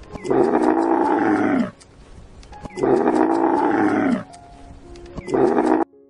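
Bactrian camel bellowing three times: two long drawn-out calls of about a second and a half each, then a shorter one, each sinking in pitch as it ends.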